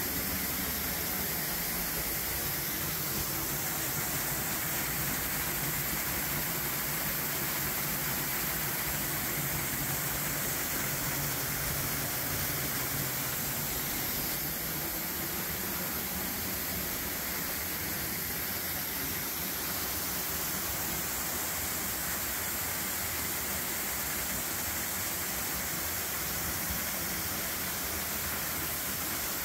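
Waterfall falling with good flow: a steady, even rush of water with no let-up.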